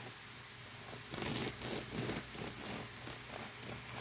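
Bread knife sawing through the hard crust of a freshly baked crusty loaf, in repeated crunching strokes that start about a second in.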